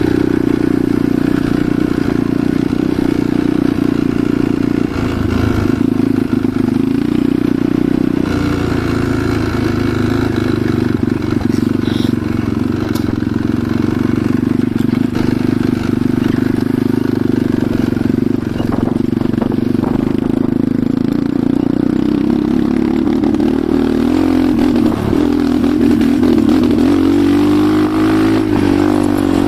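Enduro motorcycle engine running steadily while riding, with the engine note wavering up and down near the end as the throttle changes.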